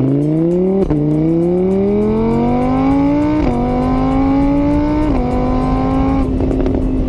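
Motorbike engine sound revving up through the gears: the pitch climbs, drops at a gear change about a second in, climbs again, drops at two more shifts, then holds steady near the end.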